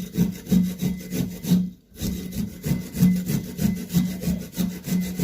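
Fresh turmeric root being rubbed back and forth on a hand grater: rhythmic rasping strokes, about three a second, with a brief pause about two seconds in.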